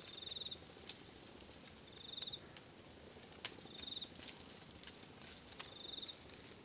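Insects in an orchard: a steady high-pitched drone, with a short trill repeating about every two seconds. A few faint clicks are mixed in.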